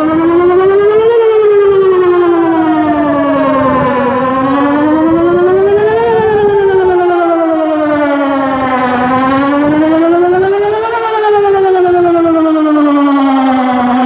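Pole-mounted electronic outdoor tornado warning siren sounding a wail: one loud tone that rises over about two seconds and falls over about three, peaking three times, during a test of the emergency warning system.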